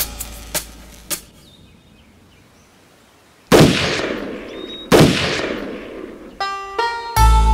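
Music dies away into a short near-silence, then two loud bangs about a second and a half apart, each trailing off in a long echo. Near the end, music comes back in with held notes and drums.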